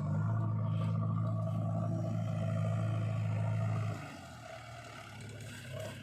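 A heavy diesel engine runs loud and steady, then drops sharply to a quieter, steady running about four seconds in.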